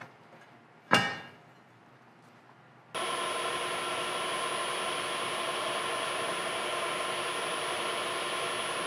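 A single sharp click about a second in, then about two seconds later a shop machine starts abruptly and runs steadily with a constant high whine.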